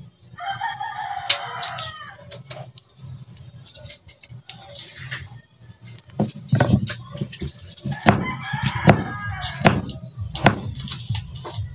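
A rooster crowing twice, once near the start and again about eight seconds in, over scattered sharp taps of a knife on a wooden chopping board.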